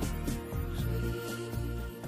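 Background music with a steady beat over held notes and a bass line.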